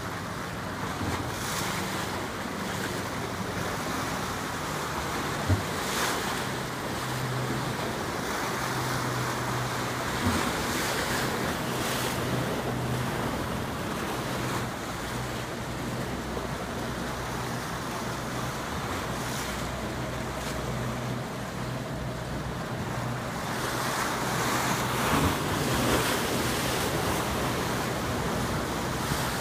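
Wind buffeting the microphone over the wash of river water and boat wakes, with a low steady engine hum underneath. Two short sharp knocks stand out, about five and ten seconds in.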